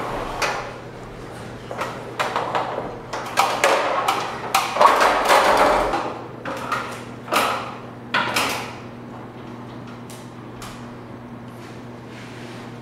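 Aluminium stepladders knocking and clanking as they are climbed and shifted, an irregular run of sharp metallic strikes for about eight seconds, then only a steady low hum.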